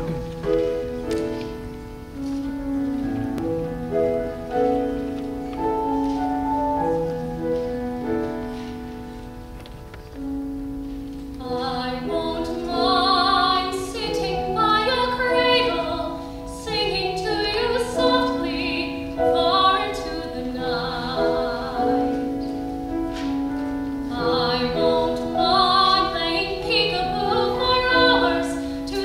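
Grand piano playing a slow introduction, then a female singer comes in with the piano accompaniment about eleven seconds in, singing into a microphone.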